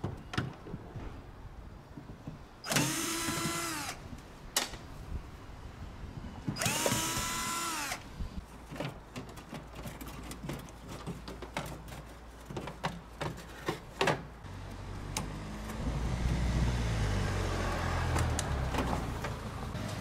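Cordless drill/driver backing out the screws of an air conditioner's control-box cover: two short motor runs of about a second each, the whine climbing as it spins up and then holding. These are followed by a scatter of sharp clicks and rattles, and a low rumble in the last few seconds.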